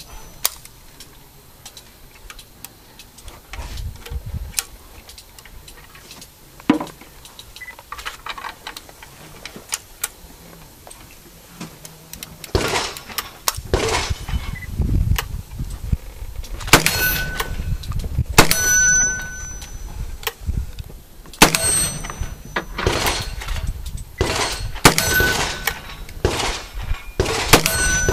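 A string of black-powder gunshots from a percussion Remington 1858 revolving carbine and then a cap-and-ball revolver. There is one shot early, then shots come every second or two through the second half. Some are followed by a short metallic ring from a hit steel target.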